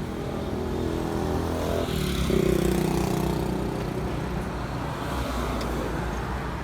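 An engine running with a steady hum; about two seconds in its pitch shifts and it briefly grows louder.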